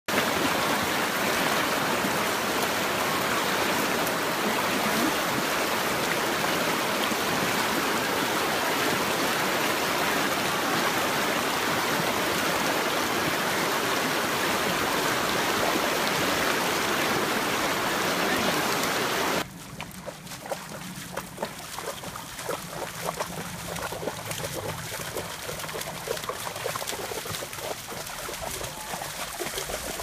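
Fast river rushing over rocks, a steady, loud rush of water. About 19 seconds in it cuts off suddenly to a quieter, shallow creek trickling, with irregular splashes of goats wading through it.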